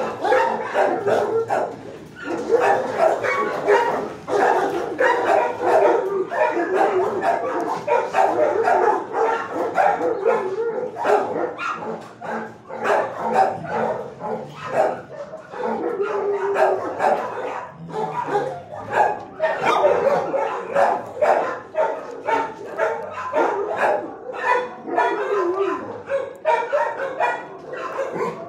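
Many dogs barking continuously in a shelter kennel block, the barks overlapping one another without a break.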